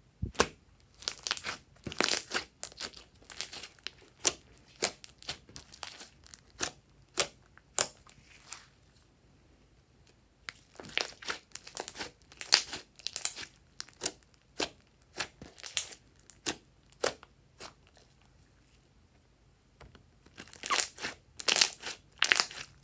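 Hands kneading, folding and pressing thick slime: irregular clusters of wet squelching pops and crackles as air pockets squeeze out. The sound pauses briefly about nine seconds in and again around eighteen seconds in.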